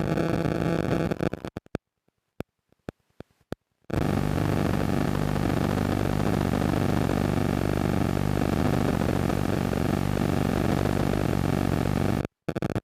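Verizon n2 (1900 MHz) 5G signal received on a Nooelec E4000 RTL-SDR and played as audio: a dense buzzing static with a steady low hum. About a second and a half in it cuts out to silence broken by a few scattered clicks, comes back abruptly about two seconds later, and drops out again for a moment near the end.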